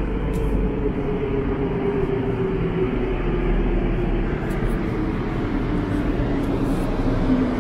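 Santiago Metro train approaching the platform through the tunnel: a steady rumble with a motor whine that slowly falls in pitch.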